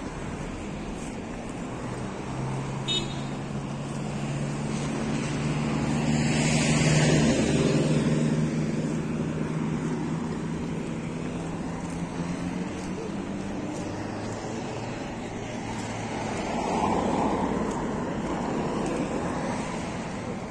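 Road traffic on a town street: cars and pickup trucks driving past, with a steady engine hum as one passes close, loudest about seven seconds in, and another vehicle going by near the end.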